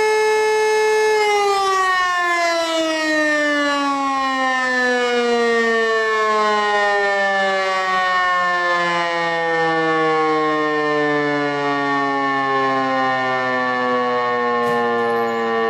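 Motor-driven fire siren holding a steady tone, then about a second in its pitch begins a long, slow fall as the siren winds down at the end of its alarm signal.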